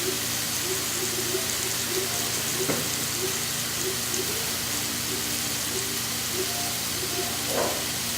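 Sliced peppers and onions sizzling on a hot grill, a steady frying hiss, with a brief knock near the three-second mark and another near the end.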